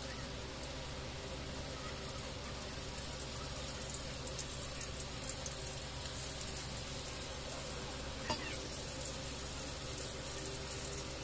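Chicken pieces frying in shallow oil in a pan, a steady sizzle with fine crackling. There is one sharp tap about eight seconds in.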